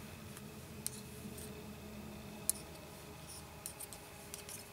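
Knitting needles clicking faintly as stitches are worked, a few scattered ticks, the sharpest about two and a half seconds in.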